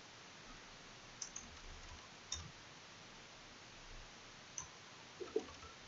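A handful of faint, scattered clicks from a computer keyboard and mouse as words are selected and deleted in a document.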